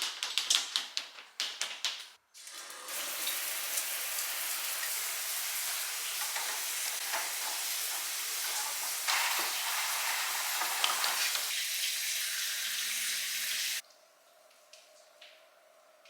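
Water running steadily from a tap into a sink, shut off abruptly near the end, after a quick series of clicks and taps in the first two seconds.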